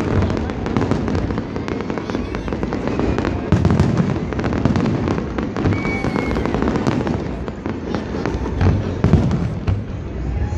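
Aerial fireworks display in a continuous barrage: shells bursting one after another with deep booms and dense crackling, without a break.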